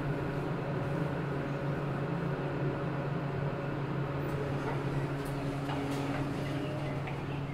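Hotel elevator car in motion: a steady low mechanical hum, with a few faint clicks in the second half.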